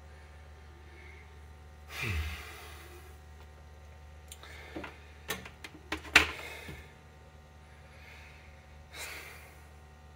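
A person sighs about two seconds in and exhales again near the end. In between come a few sharp clicks and knocks as plastic tubing and a small plastic bottle are handled, over a low steady hum.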